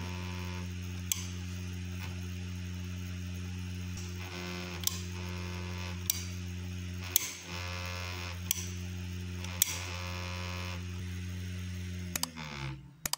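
Ender 3 hotend fan, fitted with a weighted ballast cap, running with a steady hum. Single sharp clicks come about six times as the bed-leveling knob is turned one tooth at a time (0.01 mm each). A buzz comes and goes a few times while the vibrating nozzle touches the bed and goes quiet when it doesn't. Near the end the fan winds down with a falling hum.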